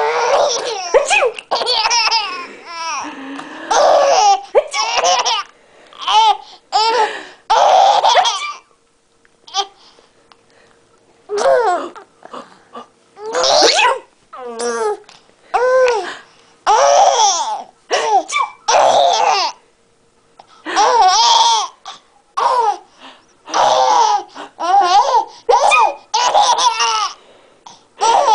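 Baby laughing in repeated bursts, with a few short pauses between them.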